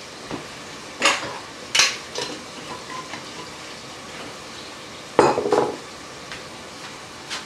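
Kitchen clatter of glass jars and utensils: single sharp knocks about one and two seconds in and a short cluster of rattles about five seconds in, over the low steady sizzle of chicken frying in a pot.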